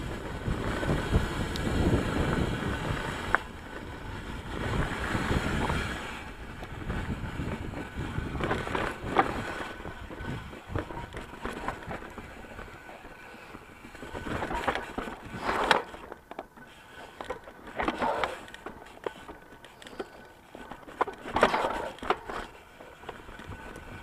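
Ibis Mojo HD3 full-suspension mountain bike rolling fast down a rocky dirt singletrack: tyre noise and rumble over the dirt, heaviest in the first six seconds, then quieter rolling broken by several short clattering bursts as it goes over rocks.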